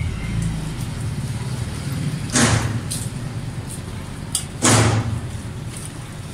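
Diluted shampoo poured from a steel mug onto a wet dog's coat: two short splashing pours, about two seconds apart, over a steady low rumble.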